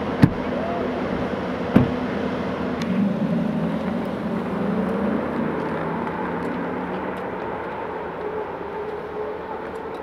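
Rimac Nevera electric hypercar: two sharp thumps in the first two seconds as its doors shut, then a low electric hum and whine as it pulls away, slowly fading.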